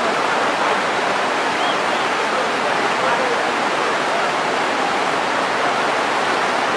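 Steady rushing of a river in flash flood, fast water pouring over and between boulders, with faint voices in the distance.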